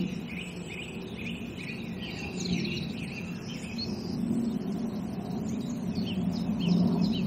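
Songbirds singing and calling, one repeating a short chirp about twice a second for the first couple of seconds, others adding quick high notes. Beneath them runs a low steady rumble that grows louder toward the end.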